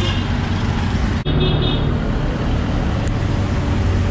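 Motor engine rumble as an auto-rickshaw (tuk-tuk) passes close by in a narrow street: a steady low drone of traffic. The sound breaks off for an instant about a second in, then the engine rumble carries on.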